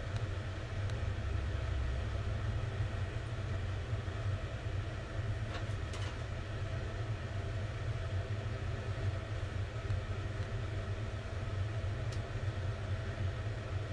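Steady low machine hum with no pauses, with a few faint clicks about six seconds in and again near the end.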